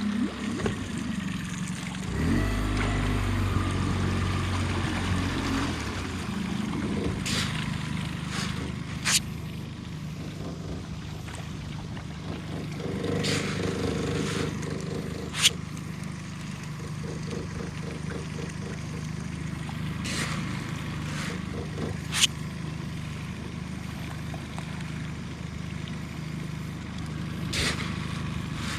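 Small boat's motor running steadily, swelling louder for a few seconds about two seconds in. A few sharp, short sounds stand out above it, several seconds apart.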